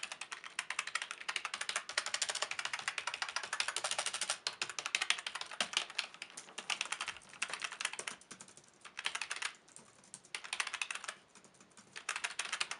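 Fast typing on a Razer Arctosa membrane keyboard that is three and a half years old: rapid, dense key clicks in runs, with a few short pauses in the second half.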